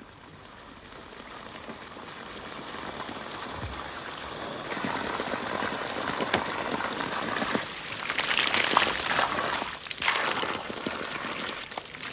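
Water running from a bamboo pipe spout and splashing onto the ground and over hands. It grows gradually louder, with its fullest splashing in the second half.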